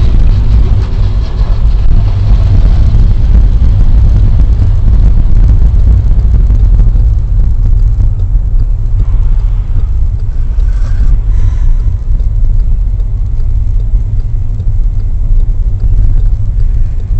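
Car driving at steady speed, heard from inside the cabin through a dashcam: a loud, steady low rumble of engine and road noise.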